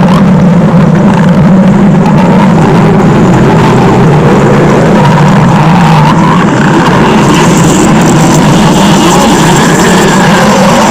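Exaggerated cartoon-style stomach growl sound effect, very loud and unbroken. It is a deep continuous rumble with wavering, gurgling pitch slides above it.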